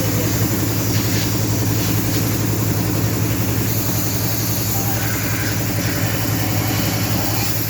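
Daewoo engine idling steadily after repair, an even low hum with a fast regular pulse that holds constant.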